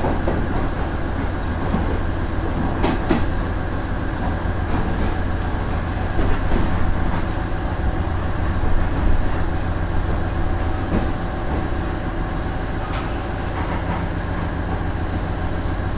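Interior of a KiHa 110 series diesel railcar under way: a steady low rumble of engine and wheels, with a few rail-joint clicks a few seconds in. It eases off and grows smoother in the later part as the train slows into a station.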